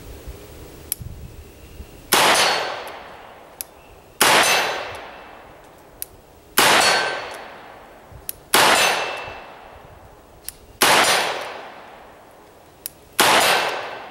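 Six shots from a revolver firing .38 Special rounds, evenly spaced about two seconds apart, each followed by the ring of the gong being hit and a trailing echo. A small click comes shortly before each shot.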